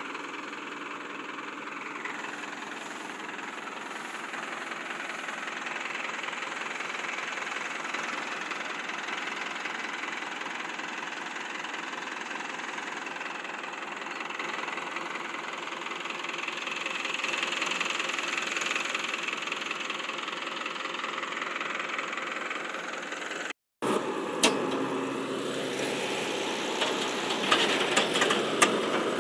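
Diesel engine of heavy farm machinery, a combine harvester and a JCB backhoe, running steadily with an even, unchanging note. After a sudden break about 24 seconds in, the engine carries on with a series of sharp clicks and knocks.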